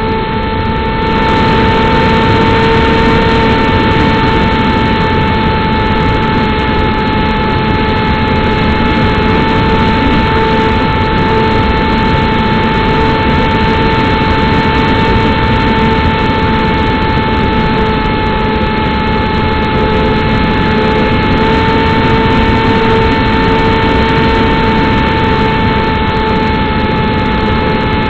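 An RC plane's motor and propeller, heard from a camera mounted on the Striker model: a steady whine that holds one pitch, over a loud rush of noise that gets a little louder about a second in.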